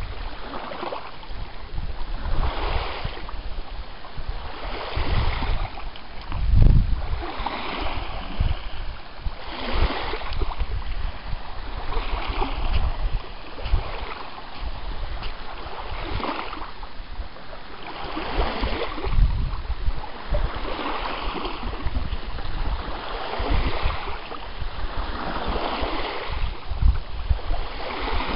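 Small lake waves lapping onto a sandy shore, a soft wash about every two seconds, with wind gusting and rumbling on the microphone.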